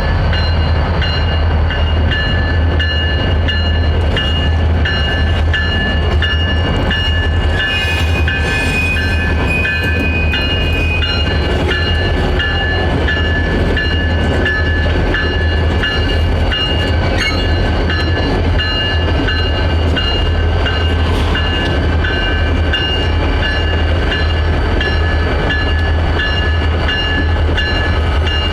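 Train rolling on the rails: a loud, steady deep hum with a running series of regular wheel clicks and steady high squealing tones. An extra higher squeal joins for a few seconds about eight seconds in.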